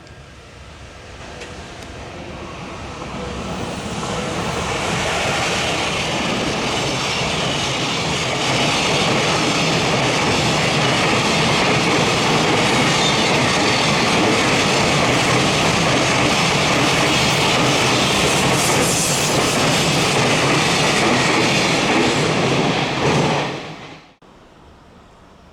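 Freight train on the JR Tokaido Main Line passing close by: a steady rumble of wheels on the rails that swells over the first few seconds as it approaches, holds loud for nearly twenty seconds, and cuts off suddenly near the end.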